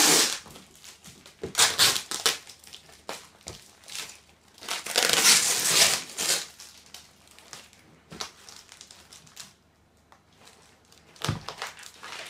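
Cardboard box and its paper wrapping being pulled open by hand: several noisy bursts of rustling and tearing, the longest about five seconds in, and a short low thump near the end.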